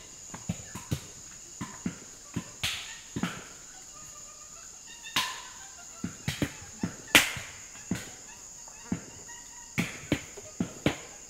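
Insects chirring steadily in a high, even band, over irregular short knocks and thumps, some close together and some a second or more apart, the loudest about seven seconds in.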